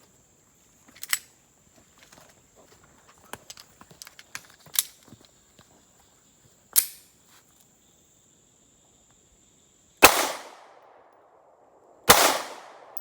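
Two shots from a Smith & Wesson CSX 9mm micro pistol, about two seconds apart near the end, each with a long echoing tail. They come after several seconds of light clicks and knocks from handling the gun.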